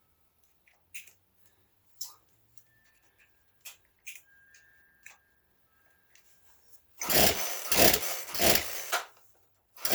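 Poulan chainsaw being pull-started: the recoil starter cord is yanked hard, and the engine cranks over in a few quick pulses without firing, about seven seconds in and again at the very end. It will not catch because the ignition is out of time from a sheared flywheel key, though the owner takes it for a fuel problem.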